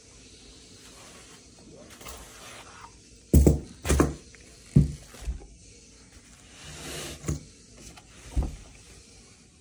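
Handling noise as a heavy championship belt is lifted out of its padded cloth bag: fabric rustling and a handful of dull thumps and knocks. The loudest thumps come about three and a half to four seconds in, and there are more later.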